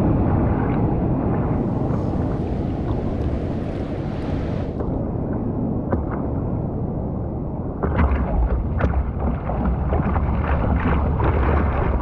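Water splashing and sloshing around a surfboard's nose, with wind rumbling on the board-mounted camera's microphone. A steadier hiss joins for a few seconds early on, and the rumble gets heavier about eight seconds in.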